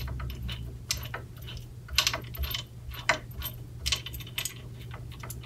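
Light metallic clicks and ticks, irregular and roughly every half second to a second, as a T-handle Allen wrench turns the bolt that fastens an arrow-rest bracket to a bow riser.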